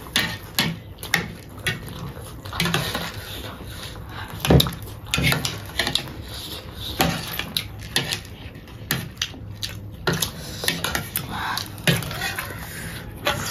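Metal spoons scraping and tapping on paper plates while crunchy chatpate is scooped up and eaten, in irregular clicks and scrapes.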